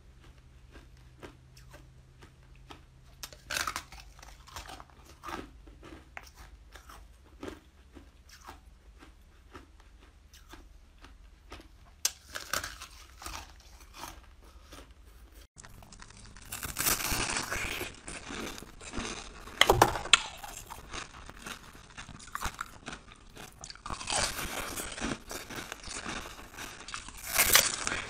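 Close-up crunching and chewing of frozen ice. In the first half, sparse crisp cracks come as a thin slab of ice is bitten and chewed; about halfway through it changes abruptly to louder, denser crunching of solid moulded ice pieces, with the hardest bites about two-thirds of the way in and near the end.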